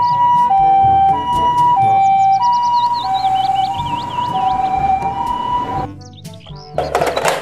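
Japanese ambulance's two-tone electronic siren, alternating a high and a low note about every half second. It cuts off about six seconds in, and a brief loud noisy burst follows near the end.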